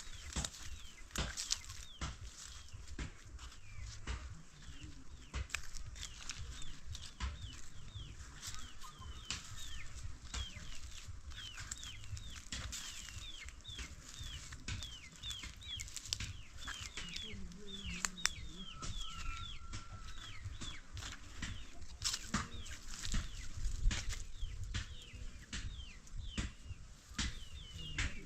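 Chickens, with a steady stream of short, high, falling cheeps and many sharp clicks and knocks throughout.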